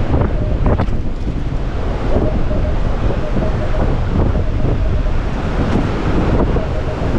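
Strong wind buffeting an unshielded microphone, with surf breaking behind it.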